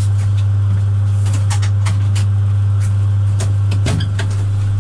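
Steady, loud low hum of a train locomotive heard inside the driver's cab, with a scatter of short clicks and knocks through the middle, the loudest shortly before the end.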